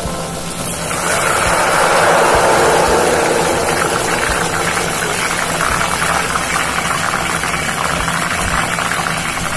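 Ghevar batter deep-frying in hot ghee, a loud, steady sizzle of foaming bubbles that swells about a second in.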